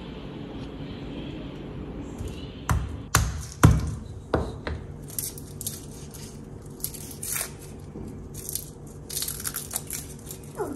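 Dry garlic skins crackling and tearing as cloves are peeled by hand, in many short scratchy bursts over the second half. Before that, a few sharp knocks about three to four seconds in, over a low steady hum.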